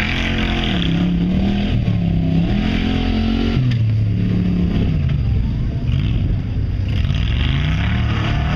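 Off-road buggy engine revving up and down repeatedly as the buggy climbs over dirt mounds. The sound changes abruptly a little over three seconds in.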